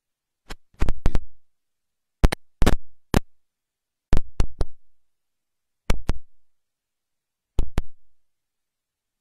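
A series of sharp knocks and thumps in five small clusters of two to four, spaced a second or two apart, close and loud.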